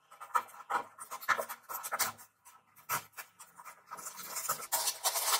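A small paperboard box being opened by hand: fingers and nails scratching and tapping at the cardboard in short clicks, then a longer rustling scrape from about four seconds in as the end flap is worked open.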